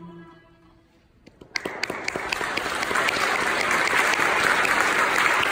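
The last held note of a song fades away. After a brief hush, an audience breaks into applause about a second and a half in, and the clapping swells and keeps going.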